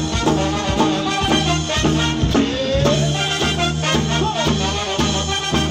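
A live Latin dance band playing: saxophones and trumpets carry the melody over bass, drums and electric guitar in a steady dance rhythm.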